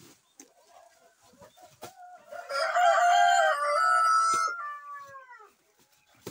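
A rooster crowing once, one long crow starting about two and a half seconds in and trailing off with a falling pitch near the end. Faint rustling and light knocks from sacks being handled come before and after it.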